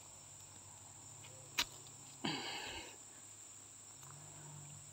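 Quiet bamboo-forest ambience under a steady high, thin whine, with one sharp click about one and a half seconds in and a short rasping sound just after two seconds.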